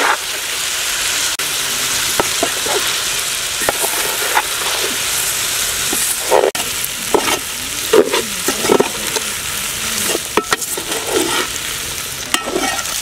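Boiled fusilli pasta being stirred into hot tomato masala in a large metal pot with a perforated steel skimmer ladle: a steady sizzle, broken by irregular scrapes and clinks of the ladle against the pot.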